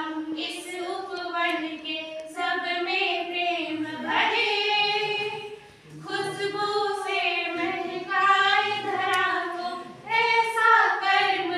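A group of young women singing a song together, with no instruments heard. The singing comes in phrases of a few seconds, with brief breaks between them.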